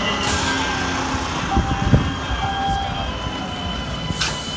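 Maryland MTA light rail car passing close by: a steady rumble of wheels on rail with faint steady whining tones, and a sharp knock about two seconds in and another near the end.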